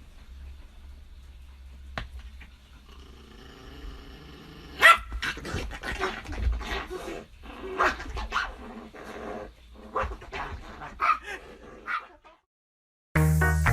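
A dog barking and growling, a run of short calls starting about a third of the way in and stopping shortly before the end. Music starts right at the very end.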